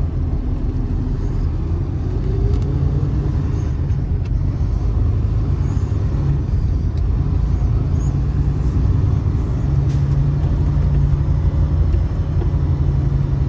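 A truck engine pulling a heavy load, a trailer carrying a backhoe. A steady low drone, with a faint tone rising in pitch over the first few seconds as it gathers speed.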